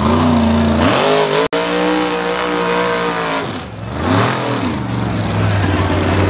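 Mud-bog truck's engine revving hard as it churns through the mud pit: the revs climb, hold high, drop back and climb again. The sound cuts out for an instant about a second and a half in.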